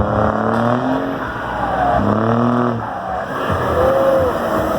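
Volkswagen 24.250 truck's diesel engine revving loud as it pulls away, its pitch climbing and falling in several surges.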